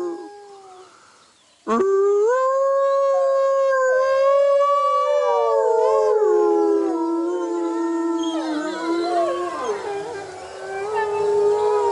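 Wolves howling in chorus: several long howls at different pitches overlap and hold. The howling fades near the start, then cuts back in abruptly after a second and a half. The voices slide down in pitch around six seconds in and grow into a denser, rougher chorus near the end.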